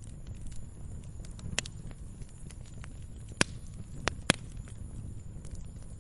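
Log fire burning with a low steady rumble and a few sharp crackling pops, the loudest two close together a little after four seconds in.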